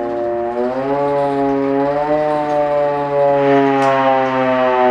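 Hand-cranked air raid siren wailing as its handle is wound slowly, the pitch climbing over the first two seconds and then holding with a slight waver as the cranking speed changes.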